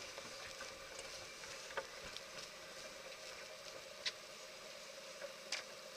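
Faint steady running noise aboard a sailing yacht under way, a hum with hiss over it, broken by three short light clicks.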